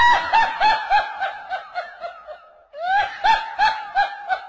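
High-pitched laughter in rapid pulses, about six a second, that trails off about two seconds in and starts again a little before three seconds.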